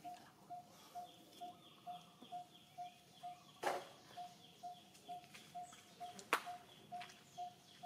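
A bird calling one short note over and over at an even pace, about two a second, with a fainter high chirping in the same rhythm. Two sharp clicks cut across it, one a little before four seconds in and a louder one about six seconds in.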